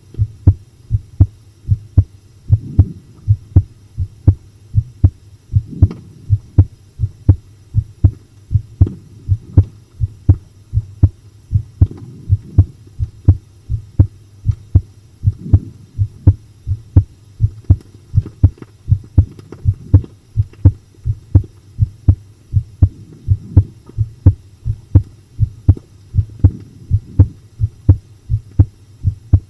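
Human heartbeat recorded close against the chest, pounding in a steady, quick run of low thumps. A faint rushing noise swells under it about every three seconds.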